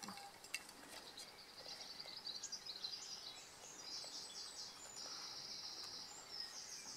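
A songbird singing faintly in the background: a high, fast trill repeated through the second half, with a few faint small clicks.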